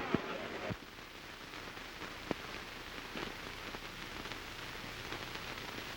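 Steady hiss and crackle of an old early-1930s film soundtrack, with a few faint clicks, the sharpest about two seconds in.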